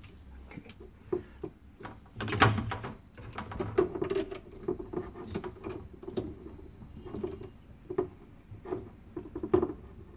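Small wrench tightening a John Guest angle stop valve onto the cold-water supply under a sink: a run of short clicks, scrapes and squeaks of metal turning on the threaded fitting, with a louder knock about two and a half seconds in.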